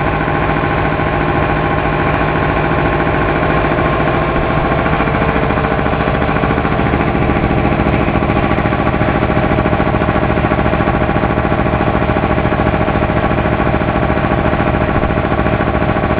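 Harbor Freight 5 HP air compressor pump, driven by a 5 HP electric motor, running steadily as it fills a 60-gallon tank; pretty quiet for its size.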